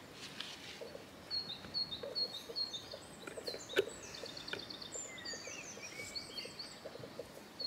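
A songbird singing: a string of short, high chirps a couple of times a second, then a fast trill and a few sliding notes. Faint ticks of thread and wire being handled lie underneath.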